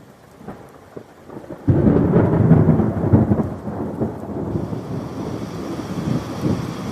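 A thunderclap breaks in suddenly about a second and a half in and goes on as a long, low rolling rumble that slowly fades. Steady rain hiss comes in around the middle.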